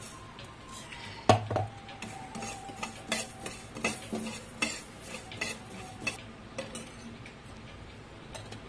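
A steel spoon stirring coriander seeds dry-roasting in a pan: irregular scraping clicks of spoon and seeds against the pan, with one loud ringing metallic clank about a second in.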